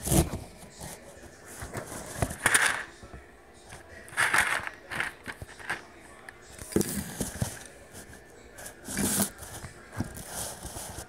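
Handling noise from a phone being pushed and rubbed among cans and jars on a pantry shelf: several short bursts of rustling and scraping, a couple of seconds apart.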